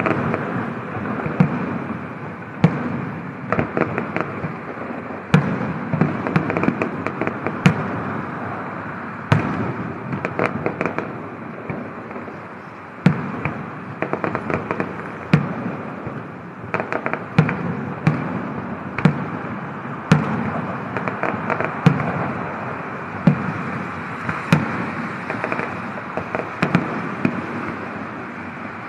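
Fireworks display: sharp bangs at irregular intervals, some coming in quick clusters of crackling reports, over a continuous rumbling background.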